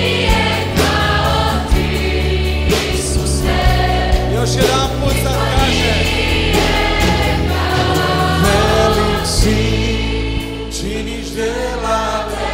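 A choir singing a Christian worship song live with a band of acoustic guitars, with a steady beat throughout.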